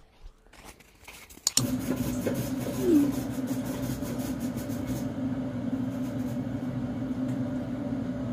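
A steady low mechanical hum starts with a click about a second and a half in, after a quiet start. A brief falling tone sounds over it about three seconds in.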